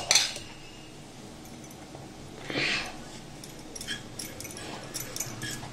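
Hand mixing boiled chickpeas with cornflour in a steel bowl: a soft rustle about two and a half seconds in, then scattered light clicks and clinks near the end.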